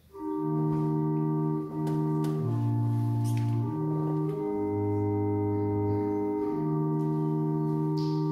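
Church organ playing slow, held chords that begin suddenly right at the start, with the bass note moving every second or two.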